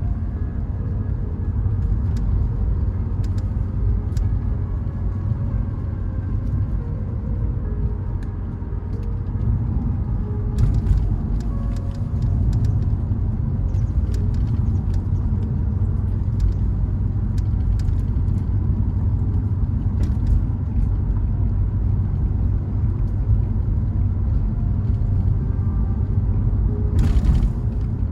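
A car driving along a rough forest road, heard as a steady low rumble of engine and road noise, with scattered sharp clicks and a brief louder rush near the end.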